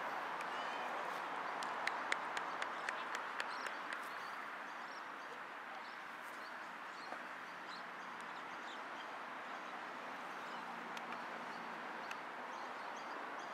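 Outdoor ambience: a steady hiss with small birds chirping faintly, and a quick run of sharp clicks about two seconds in.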